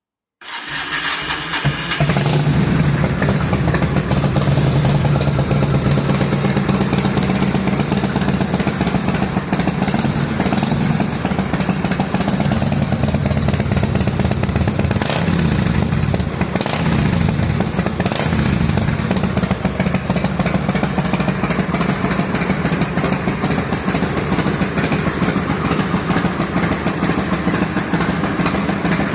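Yamaha XV1600 Wild Star's air-cooled V-twin starting and then idling through aftermarket Roadkrome headers and a Speedproducts muffler. The engine catches about half a second in and settles into a steady, loud idle, its pitch rising and falling a little a few times near the middle.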